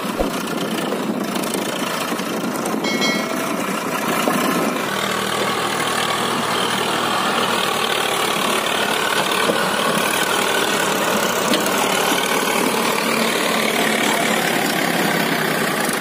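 Diesel tractor engines running steadily under heavy load: a Swaraj 744 FE towing a Mahindra Arjun tractor and its loaded sugarcane trolley through soft ground. The engine note grows a little louder and denser about five seconds in.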